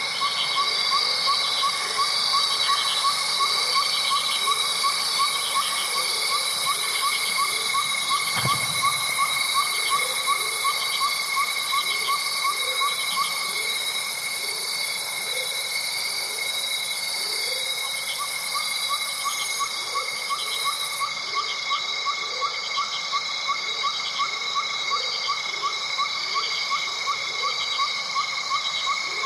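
Nature ambience of a steady high-pitched insect chorus with a short animal call repeating a few times a second. The call drops out for a few seconds in the middle. A single soft low thump sounds about a third of the way through.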